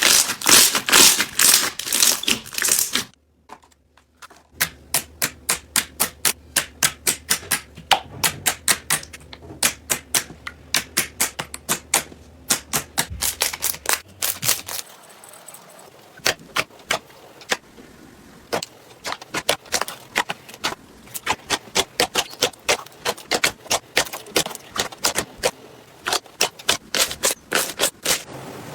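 Crunchy slime being pressed and squeezed by hand: quick trains of sharp clicks and crackles, a few a second. The clicks stop briefly about three seconds in, and a faint low hum runs under them for a while after.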